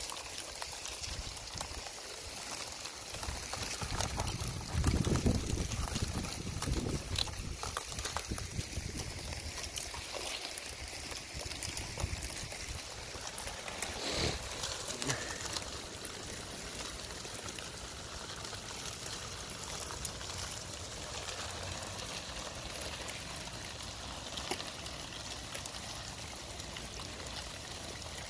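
Thin sheets of shore ice crackling and clinking as small waves move under them, with water trickling: a dense, steady fizz of tiny clicks. Low wind gusts buffet the microphone in the first several seconds.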